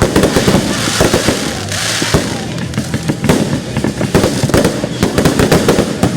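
Fireworks going off in quick succession: many sharp bangs a second, overlapping, with a stretch of crackling hiss about a second in.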